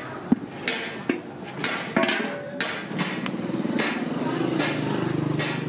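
Hammer blows on metal at a steady pace, about one every 0.7 to 0.8 seconds. A small engine runs underneath from about halfway through.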